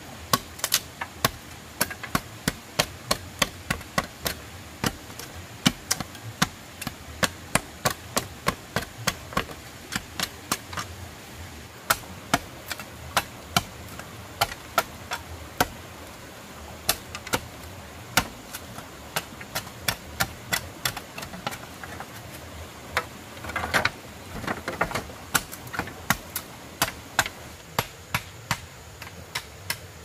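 Hand tool striking wood again and again, about two to three sharp blows a second, as in chopping or hammering during shelter building. The blows pause briefly a little past two-thirds of the way through.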